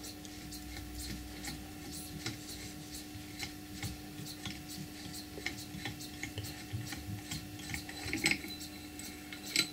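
Colchester lathe compound slide's feed screw being unwound by hand out of its nut: quiet, irregular metallic rubbing with light ticks as the steel thread turns.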